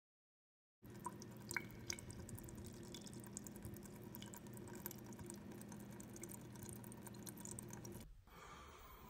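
Faint water dripping into a bathroom sink: small, irregular ticks over a steady low hum. The hum stops suddenly near the end.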